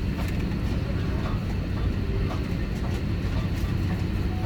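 Steady low rumble and hum inside an Airbus A321-231's passenger cabin, the aircraft's air and systems noise, with a few faint clicks.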